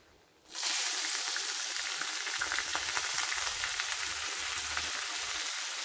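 Steamed sprouted horse gram sizzling as it hits hot coconut oil in a frying pan. The sizzle starts suddenly about half a second in and then holds steady, with fine crackles.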